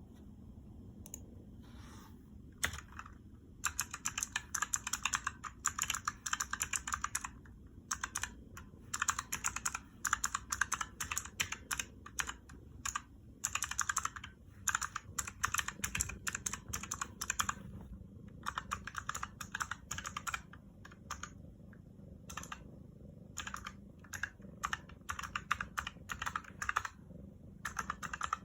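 Typing on a Razer mechanical keyboard with purple clicky switches: fast runs of crisp key clicks broken by short pauses, as if typing text in phrases.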